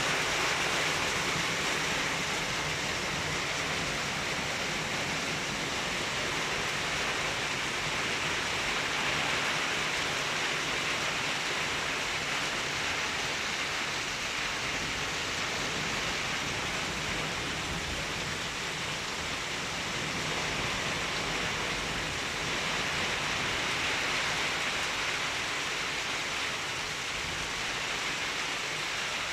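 Hail falling with heavy rain: a dense, steady hiss of stones and drops hitting the ground and surfaces, with no let-up.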